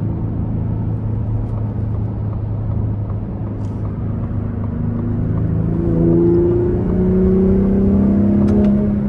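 The 2023 Ford F-150 Raptor's 3.5-litre twin-turbo V6 heard from inside the cab while accelerating onto an interstate: a steady low drone at first, then from about five seconds in the engine note climbs and gets louder under throttle. A couple of sharp clicks come near the end.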